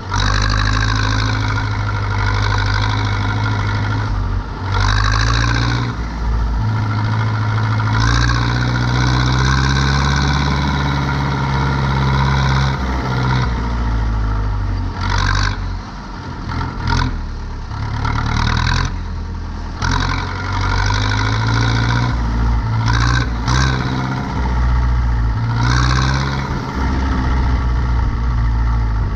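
Zetor 7245 tractor's four-cylinder diesel engine running at working revs, its pitch shifting up and down. Short, louder noisy bursts cut in every few seconds.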